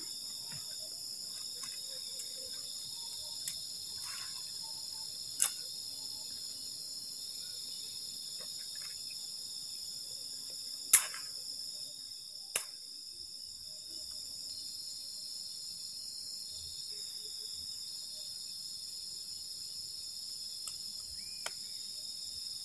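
Steady high-pitched chorus of night insects, with a few sharp snaps of bamboo sticks being handled; the loudest snap comes about halfway through.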